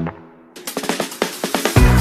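Electronic music soundtrack with a short break. The beat cuts out right at the start, a light percussion patter builds up, and the bass and kick drum come back in near the end.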